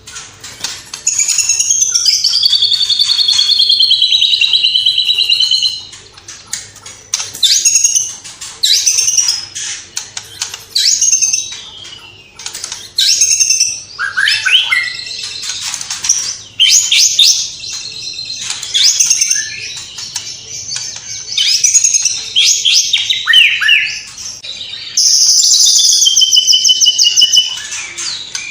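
White-rumped shama (murai batu) in full song. A long clear whistled phrase wavers up and down for several seconds, followed by a string of short, varied phrases of quick chirps, trills and sharp notes with brief pauses between them. Another long whistle comes near the end.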